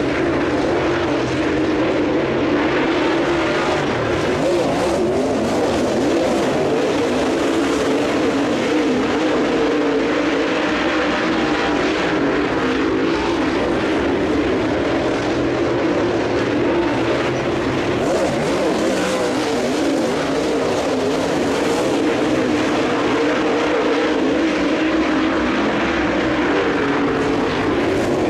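A field of dirt late model race cars' V8 engines running hard together as they race around the dirt oval, a steady, dense drone with no single car standing out.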